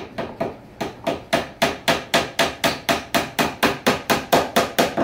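Hammer driving one-inch nails into a wooden table frame's X-brace: a steady run of quick strikes, about four a second, that stops near the end.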